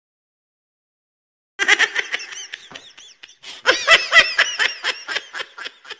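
Laughter in quick rising-and-falling giggles, starting after about a second and a half of silence.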